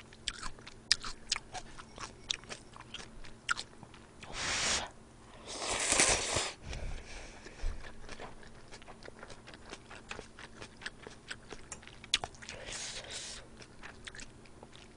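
Close-miked eating of jjamppong, a spicy seafood noodle soup: wet chewing with many small mouth clicks and smacks, and two longer noisy slurps about four to six seconds in, the loudest part.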